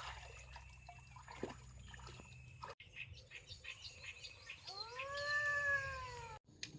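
A cat meowing once: a single long meow that rises and then falls, about five seconds in, with a few faint ticks before it.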